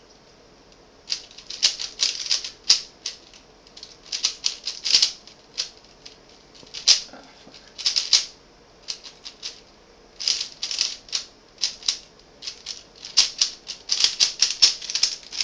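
Rubik's cube being turned fast during a speedsolve: rapid runs of plastic clicking and clacking, in bursts with short pauses between them, coming thickest near the end.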